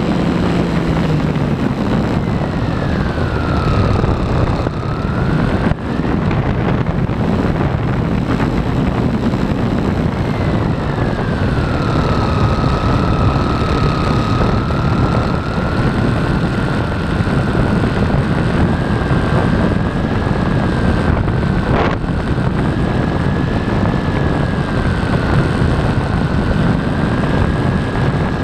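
RC airplane's motor and propeller whining over a steady rush of wind on the onboard camera. The whine drops in pitch about two seconds in and rises back, then drops again about ten seconds in and slowly climbs.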